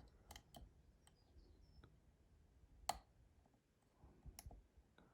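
Faint clicks of a pick working the pins inside a BTV dimple cylinder lock held under heavy tension, with one sharper click about three seconds in.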